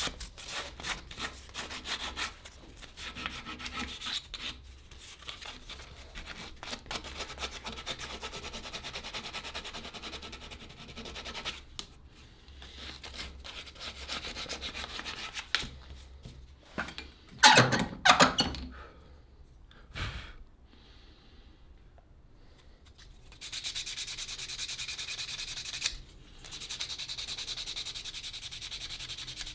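Sanding the cleaver's handle: a repeated scraping rub of abrasive against the handle. A couple of loud knocks come just past the middle, then a short lull before the sanding starts again.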